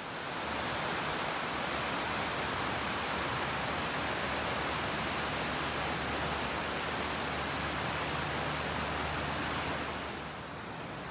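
Fast-flowing creek water rushing over rocks, a steady even noise that swells in about half a second in and falls away near the end.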